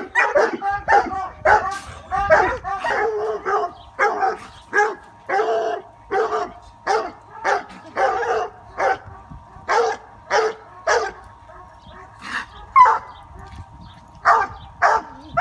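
Coonhounds barking in short, repeated barks, about two a second at first and more spaced out in the second half: hounds barking up at a live raccoon in a cage hoisted into a tree.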